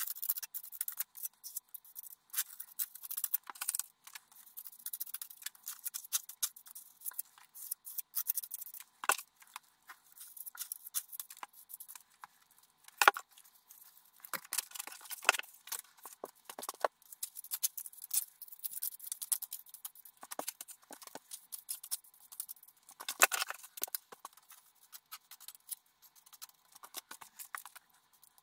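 A small hand tool scraping and scratching at a lime-plastered stone wall in quick, irregular strokes, with a few louder scrapes. About halfway through, a hand spray bottle mists the wall.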